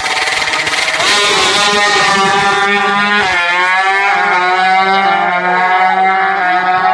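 Two drag-racing motorcycles launching from the start line, their engines revving hard at full throttle. About a second in they take off, and the engine notes climb in pitch, then dip and climb again through gear changes as the bikes pull away down the strip.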